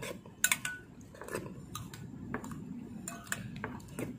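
Metal spoon clinking against a ceramic bowl several times, sharp short clinks with a brief ring, with soft mouth sounds of eating raw egg in between.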